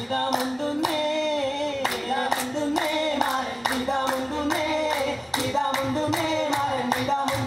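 A men's vattappattu group singing a Mappila song together without instruments, over sharp hand claps in a steady rhythm.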